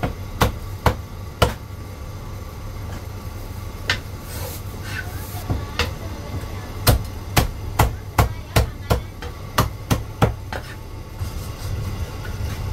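Chinese cleaver chopping roast meat on a thick round wooden chopping block: sharp knocks, a few spaced out at first, then a quick run of about ten chops, roughly three a second, from about seven seconds in. A steady low hum runs underneath.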